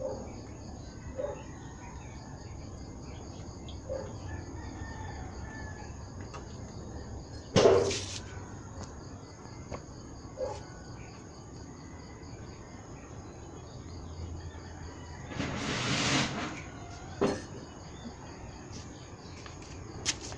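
Rural yard ambience: a steady, high, pulsing insect chorus, with chickens clucking now and then. Two louder bursts stand out, a sharp one about eight seconds in and a longer one of about a second and a half around sixteen seconds.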